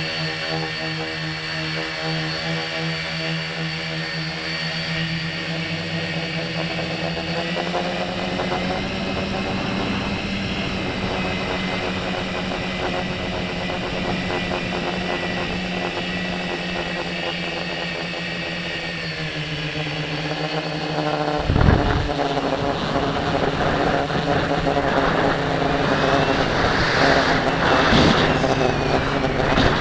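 Tricopter's electric motors and propellers whining steadily, the pitch shifting up and down with the throttle. Near the end a sudden thump is followed by louder, gusty noise as the motors rev higher.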